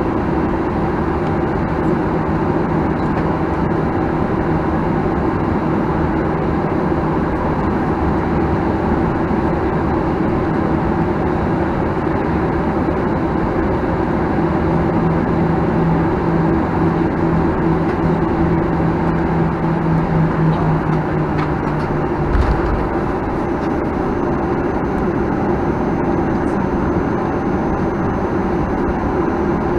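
Cabin noise of a Boeing 737-900ER on the ground, heard from inside the cabin: a steady rumble and hum from its CFM56-7B engines at low taxi power. A low hum comes up around the middle and stops, followed by a single thump.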